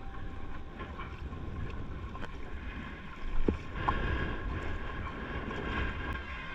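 Water splashing and wind blowing on the microphone, with a louder splash or knock about three and a half seconds in.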